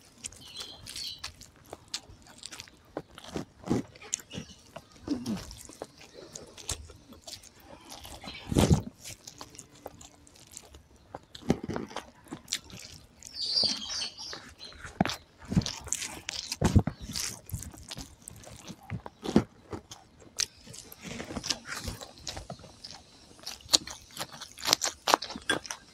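Close-up eating sounds: a hand mixing rice and egg curry on a banana leaf and mouthfuls being chewed, heard as irregular sharp clicks and wet mouth noises.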